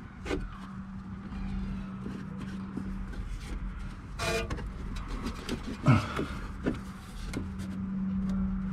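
Scattered light clicks and knocks of hands fitting a replacement rear air spring into a BMW X5's wheel well, the sharpest knock about six seconds in. A steady low hum runs underneath.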